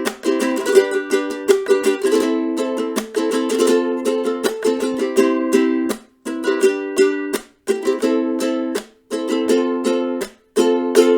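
Camwood ukulele strummed in full chords at a steady pace. The strumming breaks off briefly a few times in the second half, and a last chord rings out near the end.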